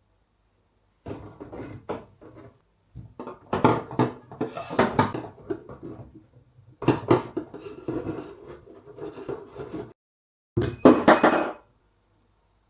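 Hard objects clattering and scraping as they are handled, in four bursts with short pauses, the loudest near the end.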